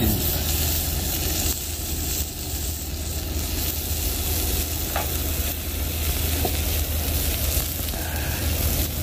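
Strips of Hanwoo beef sizzling on a hot stone griddle heated by a portable gas burner, a steady frying hiss. A steady low rumble runs underneath.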